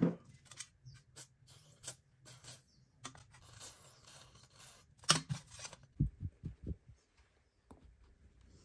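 Clicks and taps of a rusty coil tattoo machine being handled on a steel tray, with a hiss of aerosol spray through a straw near the middle, then a few loud clacks and several dull low knocks.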